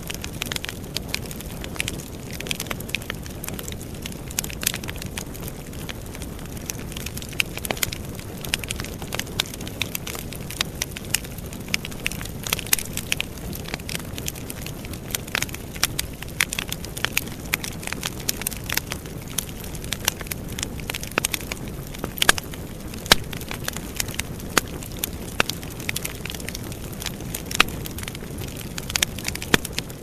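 Wood fire burning in a fireplace: frequent sharp, irregular crackles and pops from the burning logs over a steady low rush of flame.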